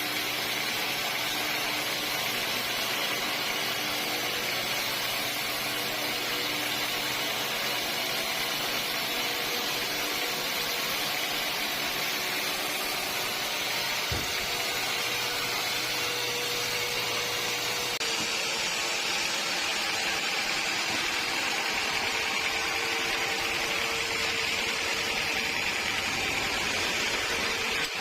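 Sawmill machinery running steadily with a continuous mechanical drone. Its tone shifts abruptly about two-thirds of the way through.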